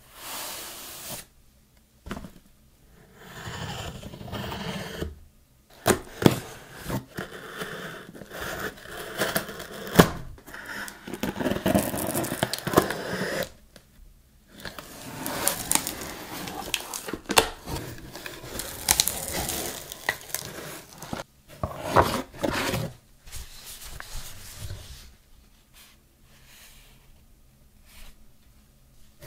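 Cardboard shipping box handled and opened by gloved hands: tearing, scraping of cardboard, and some crinkling of plastic and paper, in irregular bursts with sharp clicks and a few brief pauses.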